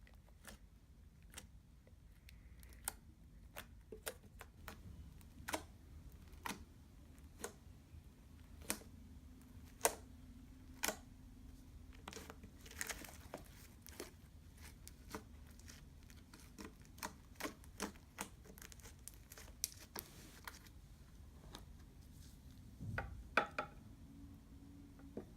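Violet slime being poked: a series of sharp little clicks and pops at an uneven pace, roughly one a second, with a quick cluster of them near the end.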